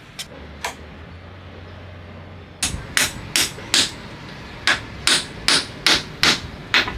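Hammer knocking a wooden cabinet-door frame together: about ten sharp blows on the wooden rails, starting under three seconds in, in two quick runs at roughly two or three a second.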